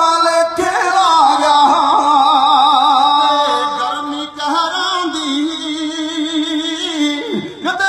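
A man singing with music, holding long notes with a wavering vibrato.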